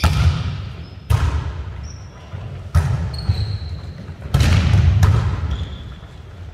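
Volleyball being hit back and forth in a rally: four sharp smacks that ring and echo through a large gym. Short sneaker squeaks on the hardwood court come in between the hits.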